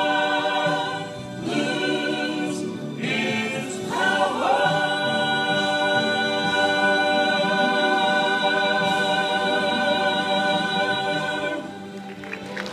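A mixed three-voice vocal trio, one man and two women, singing a gospel song in close harmony through microphones. About four seconds in they move onto one long chord and hold it for about seven seconds before it drops away near the end.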